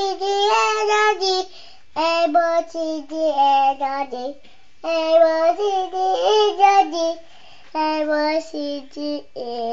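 Young boy singing a melody in four short phrases with brief pauses between them.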